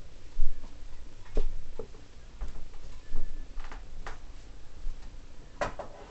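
Scattered light knocks and clicks, irregular and about a second apart, some with a low thud, the loudest about half a second in: things being handled and moved about.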